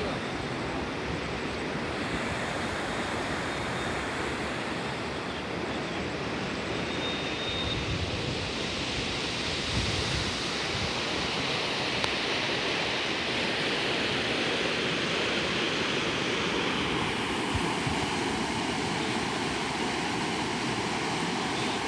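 Floodwater rushing steadily, an even noise that holds without let-up.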